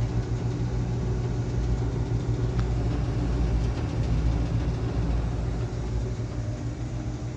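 Furnace running with a steady low hum and a rattle from something inside the cabinet, which the listener takes for something loose in there. A faint click sounds about two and a half seconds in.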